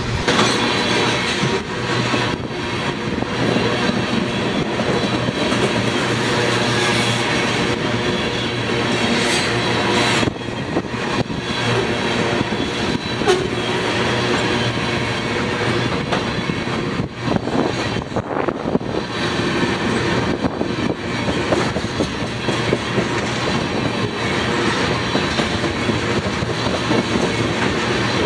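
Freight train of tank cars rolling past at close range: the steady clatter and rumble of steel wheels on the rails, car after car.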